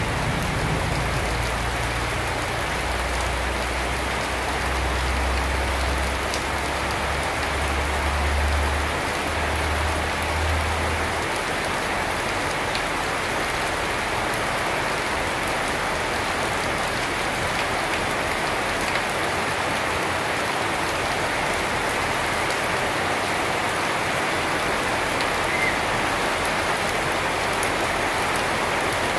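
Steady rain falling on garden foliage and a wet paved yard with puddles. A low rumble runs underneath for roughly the first ten seconds, then drops away.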